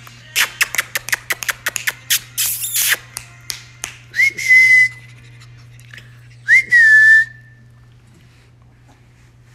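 A person making quick mouth clicks, about five a second, then whistling two short notes. Each note slides up and then holds steady. The sounds are made to catch a puppy's attention.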